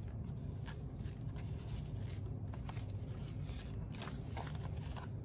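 Paper banknotes being handled and tucked into a budget binder: soft, scattered rustles and crinkles of the bills.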